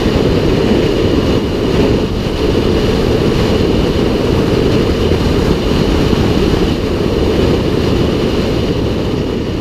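Motorcycle riding steadily at freeway speed: loud, even wind rush on the helmet-mounted microphone with the bike's engine and road noise underneath.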